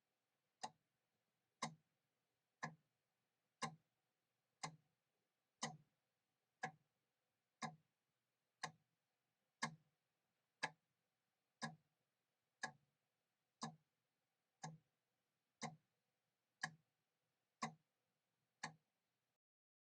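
Mechanical clock ticking: one sharp, even tick each second, with no tick-tock alternation. The ticking stops near the end.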